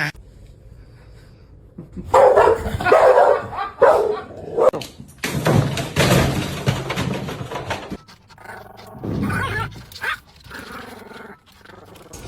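A dog vocalizing in a run of loud, uneven outbursts starting about two seconds in, with weaker ones near the end.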